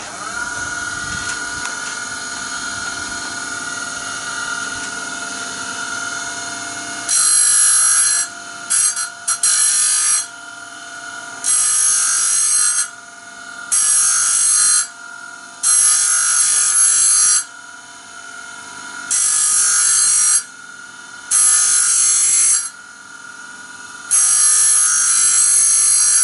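Small electric grinder sharpening a band saw blade tooth by tooth: the motor whines steadily, then from about seven seconds in the wheel grinds against the teeth in about eight short, hissy passes, each a second or two long.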